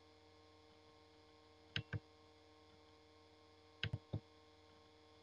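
Computer mouse button clicks: two quick clicks about two seconds in and three quick clicks about four seconds in, over a steady electrical mains hum.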